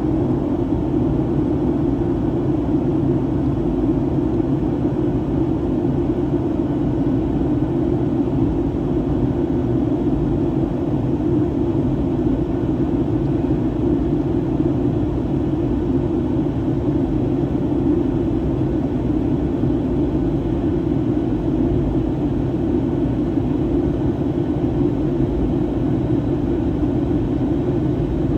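Steady cabin noise of a Boeing 737-800 in flight: an even drone of engines and airflow, strongest in a low hum, unchanging throughout.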